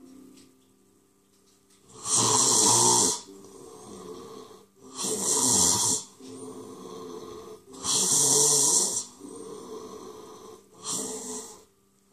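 A person drawing four loud, rasping breaths, gasping or snoring, about three seconds apart, with softer breathing between them.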